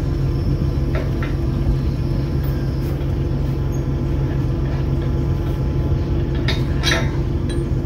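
Big truck engine idling steadily, with a few sharp metal clinks from a wrench working on the crane's hydraulic hose fittings: a couple about a second in and two more near the end.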